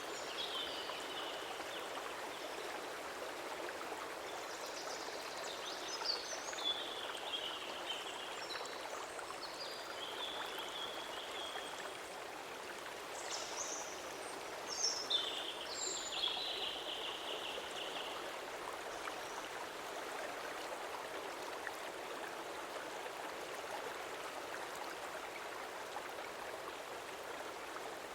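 Stream water flowing in a steady, even rush. Through the first two-thirds there are a few high, short, falling chirps.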